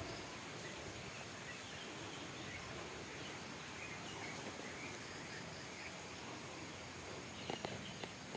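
Steady outdoor background hiss of a rural garden with faint, scattered bird chirps, and a few soft knocks near the end.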